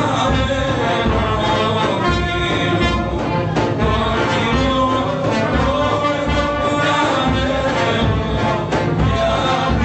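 Live Greek brass band of the Kozani brass (chalkina) tradition playing a folk tune, with trombone among the horns.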